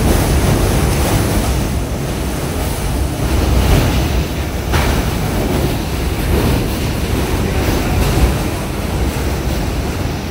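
Category 5 hurricane wind blowing against the building, heard from inside as a loud, steady rush. A sharp knock comes about five seconds in.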